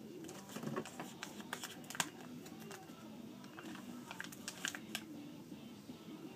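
Scattered light clicks and taps, irregular and clustered in places, over faint background music.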